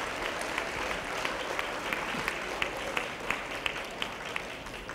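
Audience applauding: many people clapping, easing off slightly toward the end.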